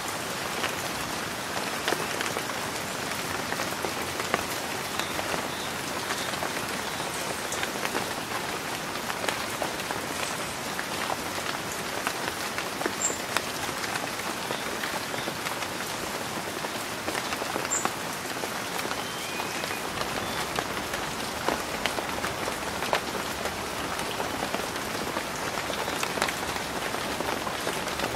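Steady rain falling under a tree canopy, a constant hiss with many separate drops pattering on leaves. Two brief high chirps stand out, about halfway through and again a few seconds later.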